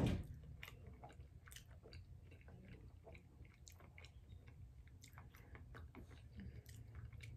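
A person chewing food with faint, irregular mouth clicks and smacks, with a sharper click right at the start.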